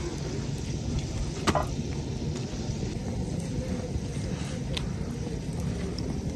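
Steady low outdoor rumble, with one sharp click about a second and a half in and a few faint ticks.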